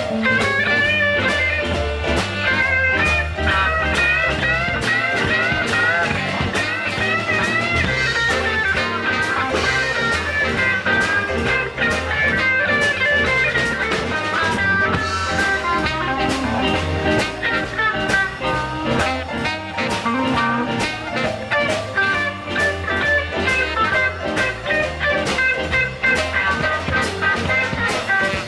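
Live blues band playing an instrumental break: an electric guitar lead with bent notes over drums, bass and piano.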